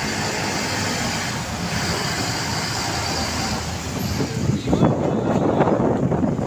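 Road traffic noise with a steady hiss of tyres on a wet road, turning louder and rougher about three-quarters of the way in as a vehicle comes close.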